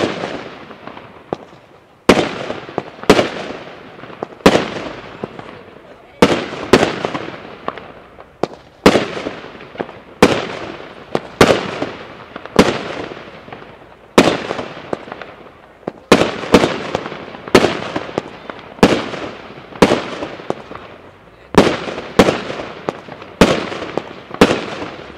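Nico Flashbang consumer firework battery firing shot after shot: a rapid series of sharp, loud bangs, one to two a second and sometimes in quick pairs, each ringing out with an echo.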